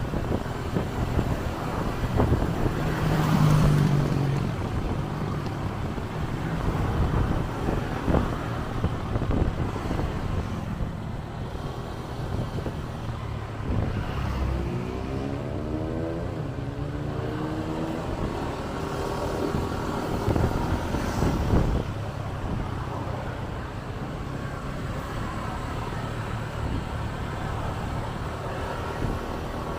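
Road traffic noise with a vehicle engine running. About halfway through, an engine speeds up, its pitch rising steadily for a few seconds.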